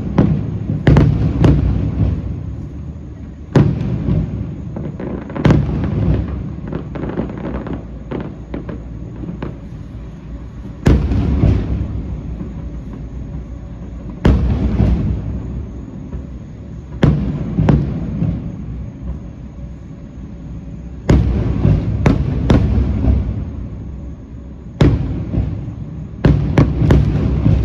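Fireworks shells bursting overhead in a series of sharp bangs every few seconds, some single and some in quick clusters of two or three. Each bang trails off in a long low rumble of echo.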